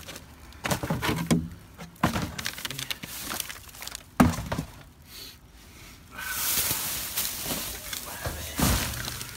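Trash being rummaged through in a dumpster: plastic bags and bubble wrap crinkling and rustling, with several sharp thunks and knocks as objects are shifted, the loudest knocks about two and four seconds in and near the end.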